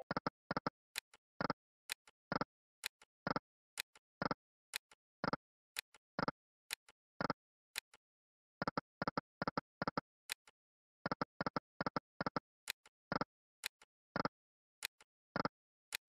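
EGT 'Extremely Hot' online slot game's reel-stop clicks: short sharp clicks, about two a second and often in small clusters, as the reels spin and stop spin after spin. There is a pause of about a second just past halfway.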